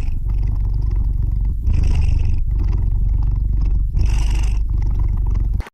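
A cat purring close to the microphone, a loud, steady low purr broken by brief pauses for breath. It cuts off suddenly just before the end.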